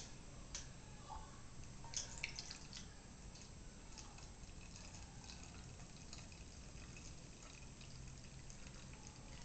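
Beer poured slowly from a glass bottle into a stemmed goblet glass: a faint trickle and drip of liquid, with a few light ticks in the first couple of seconds.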